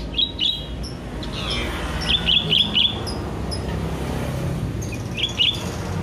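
Sooty-headed bulbul singing in short, sharp, high chirps. There is a quick run of about four notes around two seconds in and a pair near the end, over steady low background noise.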